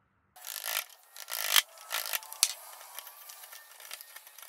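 Hand-held chisel paring wood from a mortise in a timber beam, scraping along the grain: three or four strong rasping strokes in the first two seconds, a sharp tick, then fainter steady scraping.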